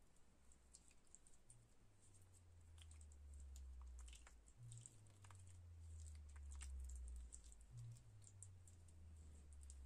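Faint, soft clicking and squishing of wet green herbal paste being rubbed over the skin of a hand, over a faint low drone that shifts in pitch every few seconds.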